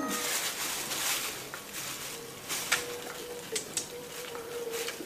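Plastic bag crinkling and rustling under the hands, with a few sharp clicks, as longan fruit are handled and opened.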